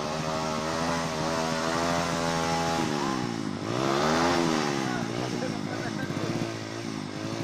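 Trail motorcycle engine revving on a climb: the revs hold fairly steady, swing up and back down about three to four seconds in, then rise and dip in short blips.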